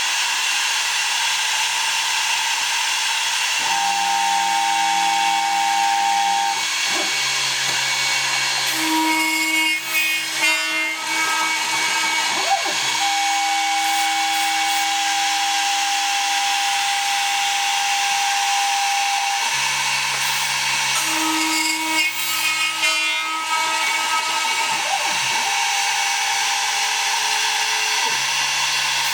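A DIY CNC router milling 2 mm aluminium sheet: a steady spindle-and-cutting noise, with motor tones that jump to a new pitch every few seconds as the machine changes moves. The cutting grows rougher and rattlier for a few seconds twice.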